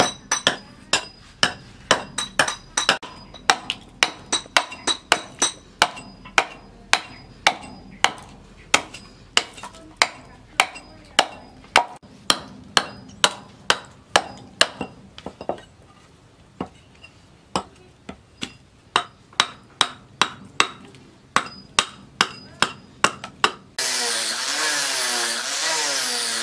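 Small hatchet chopping chips off a wooden axe-handle blank: sharp chops about two a second, with a short lull past the middle. Near the end an angle grinder with a sanding disc starts up and runs steadily on the wood.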